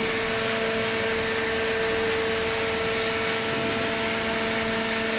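Hydraulic horizontal cardboard baler running: a steady machine hum with a constant whine and no change in pitch.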